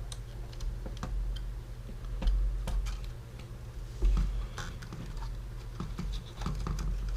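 Irregular light clicks, taps and scrapes of small camcorder parts and tools being handled during reassembly, over a steady low hum.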